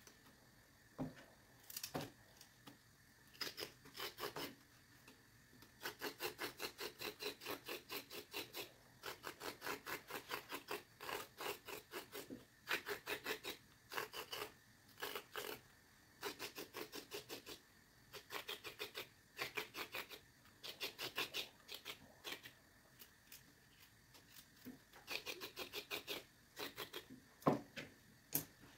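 Small kitchen knife scraping the skin off a courgette and then a carrot in quick, rasping strokes, about five a second, in runs broken by short pauses.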